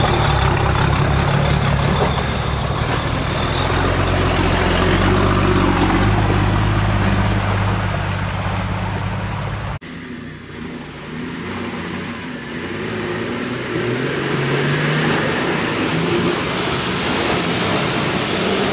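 Toyota Land Cruiser HDJ80's 4.2-litre straight-six turbo-diesel running hard close by, a steady low drone. About ten seconds in the sound cuts to the truck heard from farther off, its engine revving as it ploughs through a flooded mud track with water splashing.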